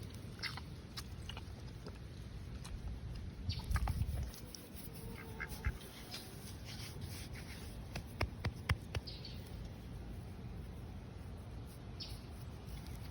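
Farm ducks quacking now and then, with scattered small clicks and a brief low rumble about four seconds in.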